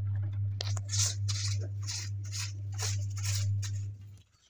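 A hand brush scrubbing a wet, soapy suit jacket on the floor, about three short scratchy strokes a second. A steady low hum runs underneath and stops shortly before the end.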